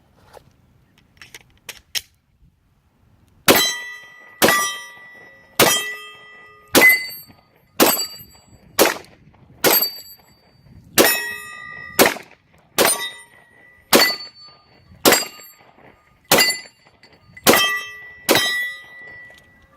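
9mm Glock 17 Gen 4 pistol fired fifteen times at a steady pace of about one shot a second, each shot followed by a metallic ringing that dies away. A few faint clicks come just before the first shot.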